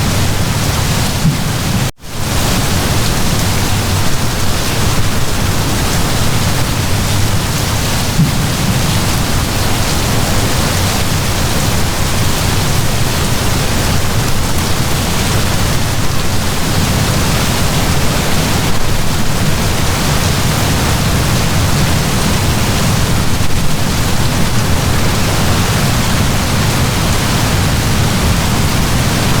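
Heavy rain downpour: a steady dense hiss with a low rumbling undertone. The sound cuts out for an instant about two seconds in, then carries on unchanged.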